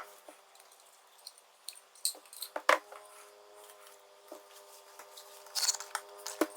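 Scattered sharp clicks and taps of hand work on motorcycle parts, a few louder ones about two and three quarters of a second in and again near the end, over a steady hum from a running machine in the shop.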